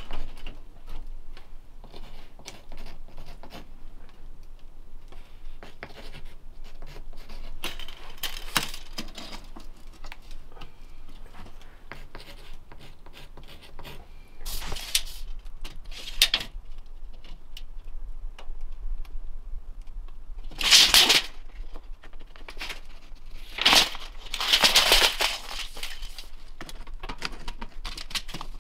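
Measuring-and-marking handling noise: a tape measure being worked, small clicks, and several short, scratchy strokes of a pencil on a wall panel, the loudest strokes coming in the second half.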